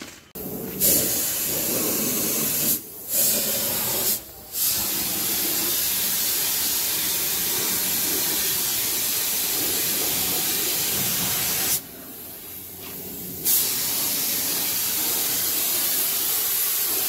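Compressed-air paint spray gun hissing as it sprays paint, in long bursts. The trigger is let go briefly about three and four seconds in and for over a second near the end, and the hiss starts again sharply each time.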